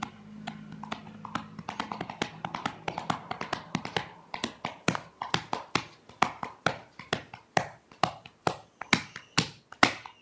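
Repeated sharp taps on a hard surface, about four a second in an uneven rhythm, getting louder about four seconds in.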